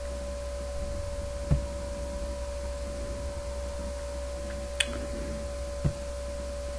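Steady electrical mains hum with a constant mid-pitched tone over it. Three short mouse clicks come through, about a second and a half in, near five seconds and near six.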